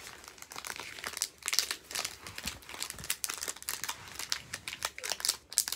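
Foil Pokémon booster pack wrapper crinkling and crackling in quick, irregular crackles as it is handled and opened.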